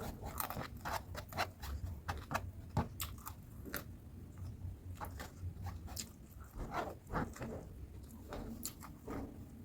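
A person chewing crunchy food close to the microphone: a quick run of crisp crunches for the first few seconds, then slower, more spaced chewing.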